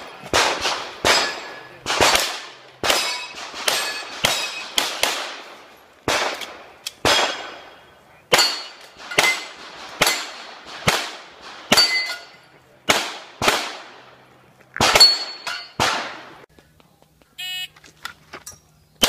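Competition pistol fire in rapid strings, a shot roughly every half second to second, each with a short echo. Some shots are followed by the clang and ring of steel targets being hit. The firing pauses near the end.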